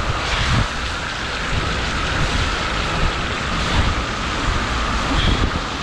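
A recumbent trike's wheels rolling through floodwater, a steady rushing swish of water and spray, with wind buffeting the microphone in uneven low rumbles.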